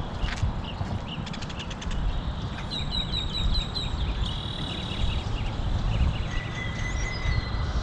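Birds calling: a quick run of high chirps about three seconds in and a held whistled note near the end, over a steady low rumbling noise, with a few sharp clicks about a second and a half in.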